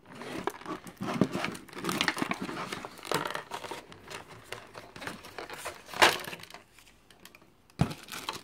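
Packaging crinkling and rustling as a cordless screwdriver is taken out of its box. There is a single loud sharp knock about six seconds in and a click near the end.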